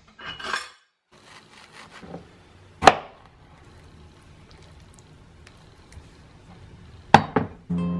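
Knife work on a cutting board while a mango is cut up: a short scraping slice near the start, one sharp knock of the blade on the board about three seconds in, and two more knocks near the end.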